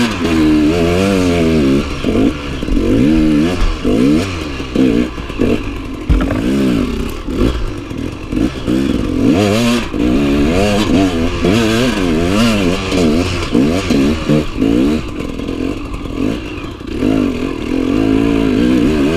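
Enduro motorcycle engine revving up and down over and over, its pitch rising and falling every second or so as the throttle is opened and closed while riding off-road up and down slopes. Occasional knocks and clatter from the bike.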